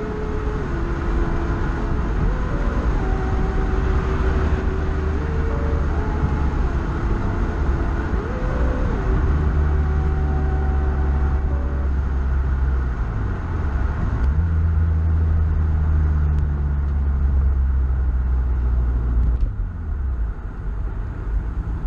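Car engine and road noise heard from inside the cabin while cruising on a highway, with a steady low drone. About 13 seconds in the engine note drops and climbs back up.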